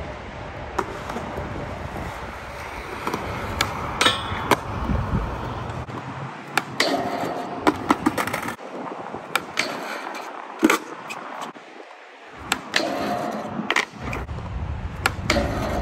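Skateboard wheels rolling on concrete, with a string of sharp clacks and knocks as the board is popped, flipped and hits the ground. The rolling rumble drops out about six seconds in and returns near the end.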